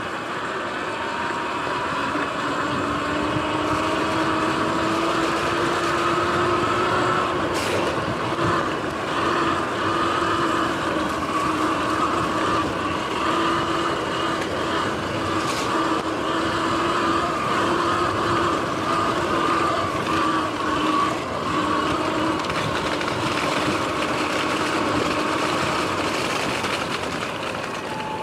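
Sur-Ron X electric dirt bike's motor whining under way, rising in pitch over the first several seconds and then holding roughly steady with small dips as speed varies, over a constant rush of wind and tyre noise. Two short sharp clicks, about a third and two thirds of the way through.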